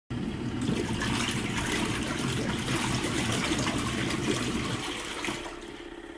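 Water gushing and splashing steadily in or out of a mini twin-tub washing machine. It starts suddenly and eases off near the end.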